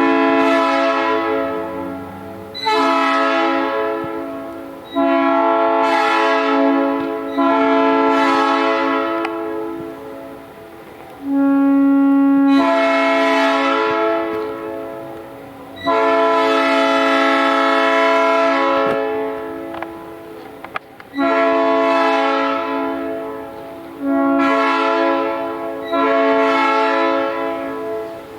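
New-cast Nathan AirChime P3 train horn, double-diaphragm, sounding its chord in a series of blasts of one to three seconds each, some running straight into the next. Each blast starts loud and fades as the air pressure drops. The tone is a bit harsh.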